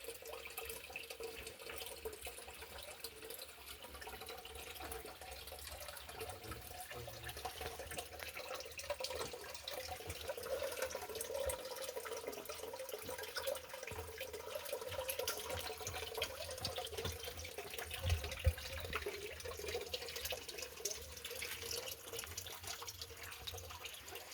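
Spring water running and splashing from under a rock, a steady trickle full of small drips and splashes. There is a brief low bump about eighteen seconds in.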